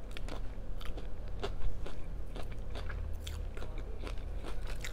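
A person chewing crunchy food close to the microphone: an irregular run of crisp crunches and small clicks.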